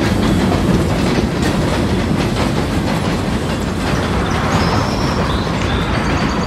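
HO-scale model freight cars rolling across a model trestle bridge: a steady rumble with rapid clicking of the wheels over the track, with a few faint high wheel squeals in the second half.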